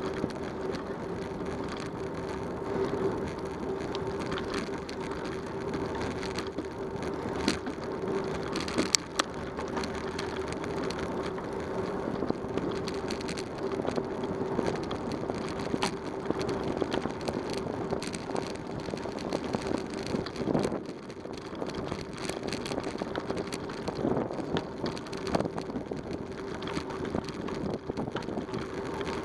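Bicycle riding noise: tyres rolling over a rough road with a steady hum, the bike and camera mount rattling, and a few sharp knocks over bumps.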